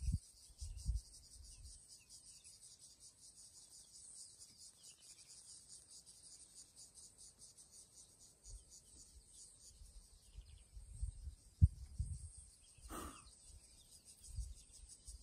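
Steady, fast-pulsing chirr of an insect chorus, with patches of low rumbling and a single sharp knock late on.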